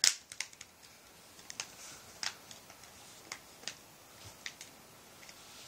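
Plastic clicks and taps from a Gateway LT2802u netbook's screen bezel and case being snapped back into place: one sharp click at the start, then scattered smaller clicks.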